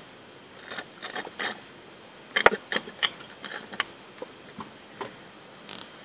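A run of irregular sharp clicks and short rattles, loudest in a cluster a little before the middle, over a faint steady hiss.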